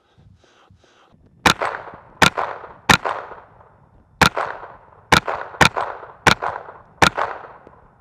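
Thompson Center TCR 22 semi-automatic .22 LR rifle firing eight shots at an uneven pace, roughly one every half second to second, starting about a second and a half in. Each crack is followed by a short echo that dies away.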